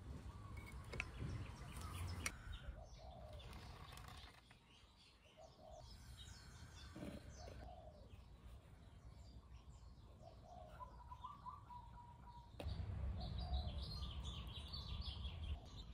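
Birds chirping faintly over a low background rumble, with two sharp clicks in the first few seconds.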